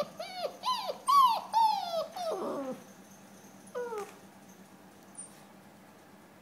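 Alaskan malamute puppy whimpering: a quick run of about six short, high whines, each falling in pitch, over the first three seconds, the last one longer, then one more whine about four seconds in.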